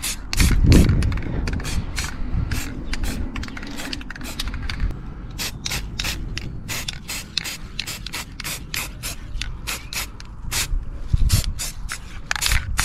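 Aerosol can of satin black spray paint hissing in many short bursts, about three a second.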